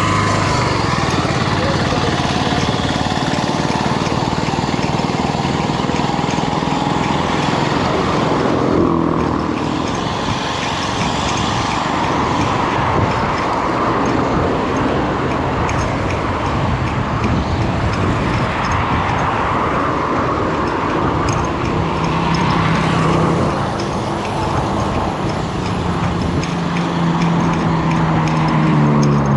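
Motor vehicle engines running, rising and falling in pitch, over dense road noise, with people's voices mixed in.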